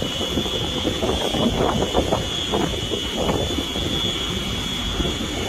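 Wind buffeting the microphone on a moving boat, over a steady engine rumble with a thin, high-pitched whine running through it.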